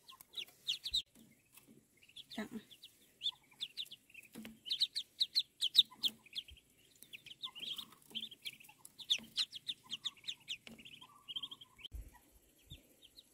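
Ducklings peeping: many quick, high-pitched peeps in fast runs, several birds calling at once.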